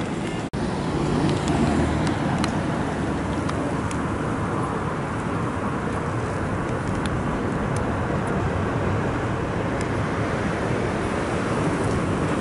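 Steady city street traffic noise, a continuous rumble of passing road vehicles, cut off for an instant about half a second in.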